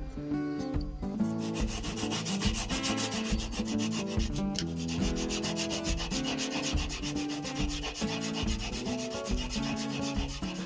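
Fast, even abrasive scrubbing on the rusty steel thumb screw of an antique spokeshave, working rust out of its deep pits.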